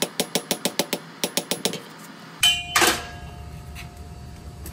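Quick, light hand-hammer taps on red-hot steel against an anvil, about six a second in two short runs, rounding and cleaning up a drawn-out point. Then, over a steady low hum, a single loud metallic clank that rings on briefly.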